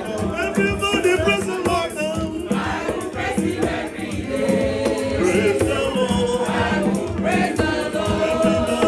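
Gospel choir singing through microphones over electric keyboard accompaniment, with a steady rattling percussion beat.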